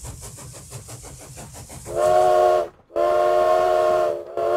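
Steam locomotive: rapid chuffing at about five beats a second, then the steam whistle blows three times, one short blast and two longer ones, sounding several notes at once.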